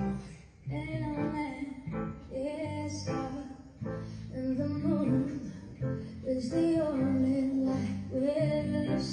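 A song with a female singer and guitar accompaniment, played through a single-ended tube amplifier as a listening test after its output transformer was rewound.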